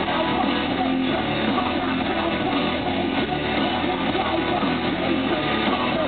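Live rock band playing at full volume, with electric guitars and drums, heard from the crowd.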